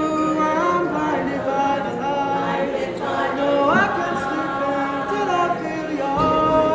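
A group of voices singing a cappella in harmony, with chords that change every second or two and a rising slide about four seconds in.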